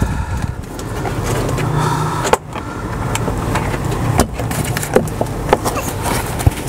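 Rustling and scuffing handling noise with a few sharp clicks and knocks, as a face mask is pulled on by someone lying on his back.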